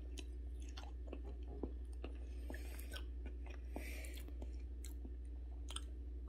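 A person chewing cooked potato slices close to the microphone: small wet clicks and crackles of the mouth, over a steady low hum. The potato is soft and tender.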